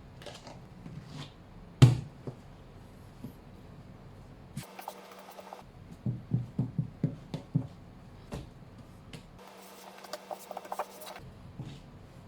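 Kitchen handling noises: one sharp knock about two seconds in, then a quick run of light knocks and clicks between about six and eight seconds in.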